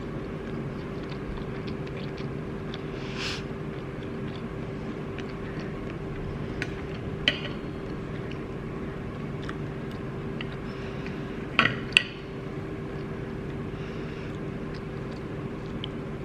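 A steady low hum with a faint held tone, with a few short clicks and clinks; the loudest two come close together about three-quarters of the way through.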